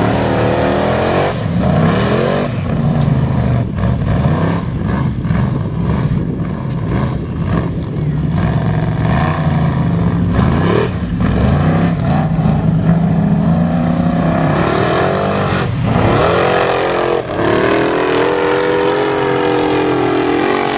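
Formula offroad buggy's engine revving hard on a sand hillclimb, its pitch rising and falling again and again as the throttle is worked, with brief cuts. Over the last few seconds it holds a steady, higher note as the buggy climbs the steep face.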